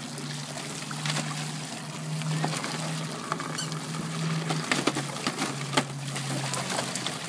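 A stream of water pouring into a plastic kiddie pool while a puppy splashes and paws at a ball in it, with short sharp splashes and knocks scattered throughout.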